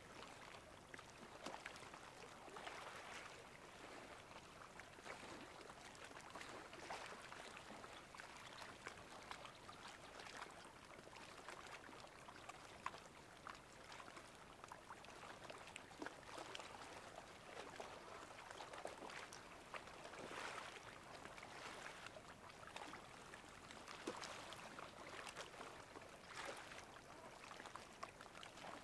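Faint seawater lapping and trickling at high tide, with many small irregular splashes and clicks and gentle swells in level.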